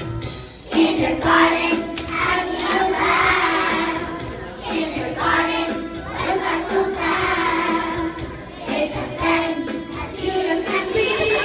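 A group of young children singing a song together, in phrases of held notes, starting just under a second in.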